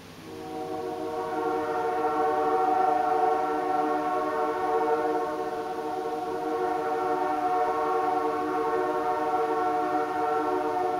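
Nathan AirChime J3 three-chime air horn (snowplow whistle) blowing one long, steady chord. It starts about a quarter second in, swells over the first couple of seconds, then holds.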